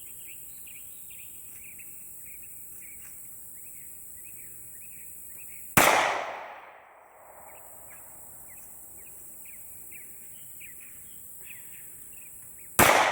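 Two gunshots from a shoulder-fired gun, about seven seconds apart, each trailing off over about a second. The second shot empties the gun.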